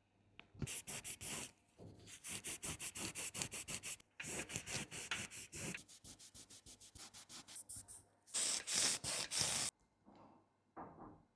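Fast back-and-forth rubbing strokes against the phone, about seven or eight a second, in several runs with short breaks, the last run louder with slower strokes.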